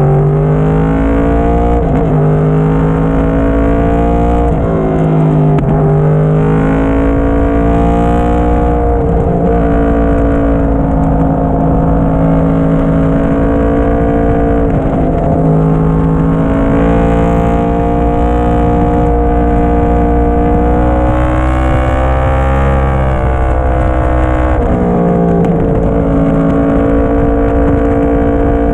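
2010 Yamaha YZF-R1's crossplane inline-four through a Yoshimura slip-on muffler, heard from on the bike while riding. A loud, continuous engine note climbs in pitch under throttle and dips sharply several times, at each roll-off or gear change.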